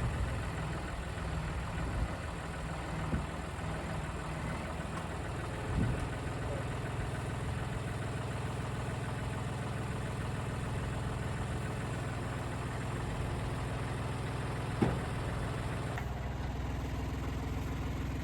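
Tractor engine idling steadily, with a few short clanks now and then.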